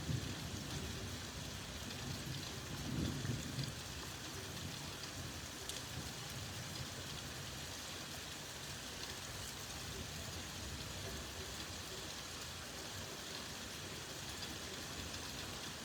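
Steady rain falling, with a low rumble of thunder in the first few seconds.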